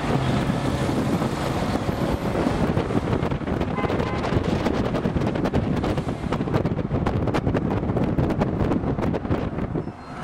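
Wind buffeting the microphone over the running noise of a moving vehicle, with frequent crackles from about three seconds in.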